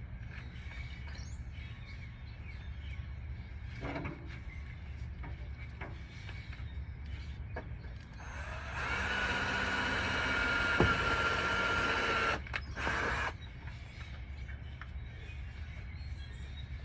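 Power drill running steadily with a whine for about four seconds about halfway through, drilling a mounting hole, then a short second burst.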